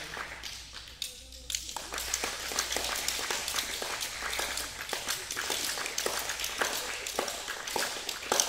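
Irregular sharp taps and claps ringing in a large sports hall, a few each second, over children's voices.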